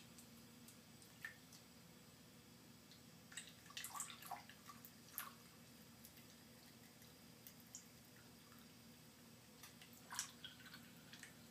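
Faint drips and small splashes of water in a sink basin as a cat plays at a thin stream running from the tap. They come in scattered clusters, about four to five seconds in and again near ten seconds.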